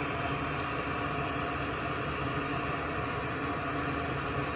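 Steady whirring noise of a running fan or blower, even throughout with a faint hum, with no clicks or knocks.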